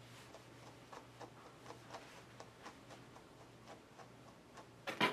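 Faint scratchy strokes of a grooming brush through a dog's coat, irregular, about two or three a second, with a louder stroke near the end.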